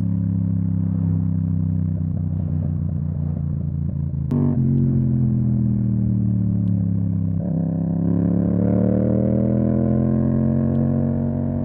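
Yamaha MT-07's parallel-twin engine through an Akrapovic exhaust, heard from the rider's seat. The note sags a little, there is a sharp click about four seconds in, and from about seven seconds in the pitch rises steadily as the bike accelerates.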